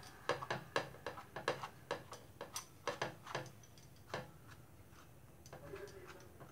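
Light, irregular clicks and taps of a table knife against buttered buns and the flat pan as butter is spread over them, thinning out about four seconds in.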